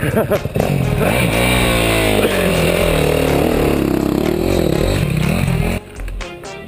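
Suzuki DR-Z400SM's single-cylinder four-stroke engine revving hard under load on a rocky climb, its pitch rising and falling, then cutting out suddenly near the end as the bike goes over on its side.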